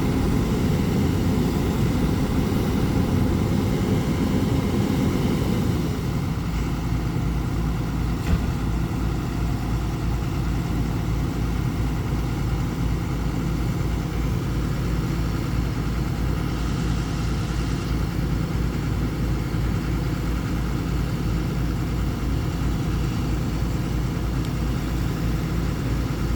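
Hyundai excavator's diesel engine running: louder under load for the first six seconds, then dropping to a steady lower run. A single sharp knock sounds about eight seconds in.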